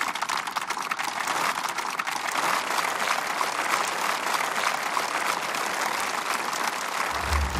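Large crowd applauding steadily, a dense patter of many hands clapping. A deep low-pitched music sound comes in just before the end.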